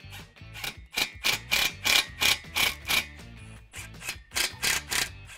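Background music with a steady percussive beat, about three beats a second.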